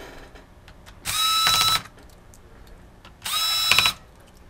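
Small electric screwdriver whirring in two short bursts, each under a second, backing out the two keyboard mounting screws of a laptop. The motor's pitch rises briefly as each burst starts.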